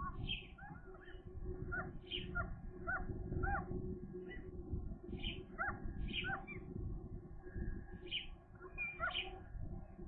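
Gulls calling: a run of short, repeated calls, some high and harsh, others small arched notes, every half second or so, over a steady low rumble.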